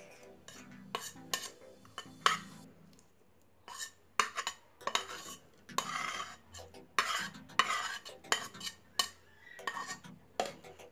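A steel spoon scraping and clinking against a plastic plate and a blender jar in irregular strokes, as fried onion, garlic and green chillies are pushed into the jar.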